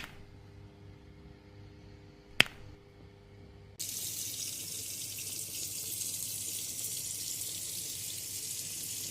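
A sharp click, then about a second later a tap is turned on at the hair-washing basin and water runs with a steady hiss.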